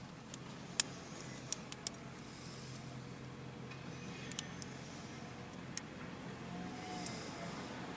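Sharp metallic clicks and taps of lock picks and a tension wrench working a Lockwood 215A40 lockout padlock, about eight scattered through several seconds, the loudest about a second in, over a low steady hum.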